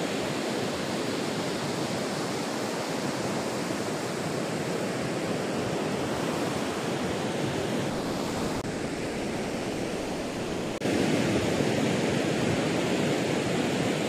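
Ocean surf breaking and washing up a beach, a steady rushing noise that steps up abruptly in loudness about eleven seconds in.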